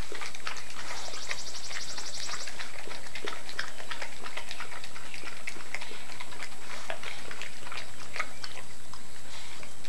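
Dog chewing and licking at a plastic soda bottle: irregular clicks and crackles of the plastic, with a quick rattling run for about a second and a half near the start.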